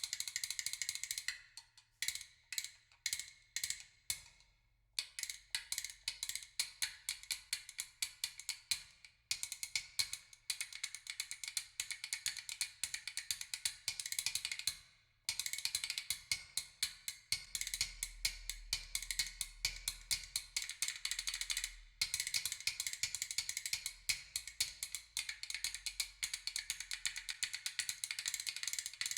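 Oak Elfton Vegas II loudspeakers playing a percussion passage of rapid, dry clicking strokes like a wood block, in phrases broken by short pauses.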